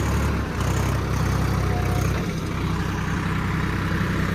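Swaraj 855 4x4 tractor's three-cylinder diesel engine running steadily at low throttle under load, pulling a fully sunk 11-tine cultivator.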